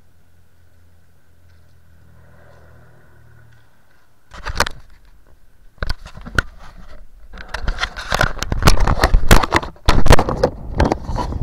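Handling noise from a small camera being picked up and moved about over gravel and ice: scraping, crackling and knocking against the microphone. It starts suddenly about four seconds in after a faint steady hum, then grows denser and louder.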